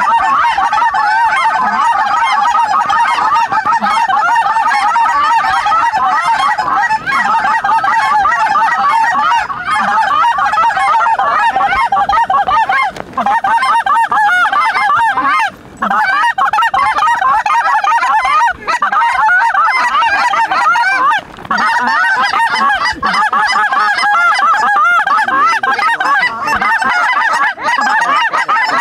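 A flock of lesser Canada geese calling: a steady din of many overlapping honks.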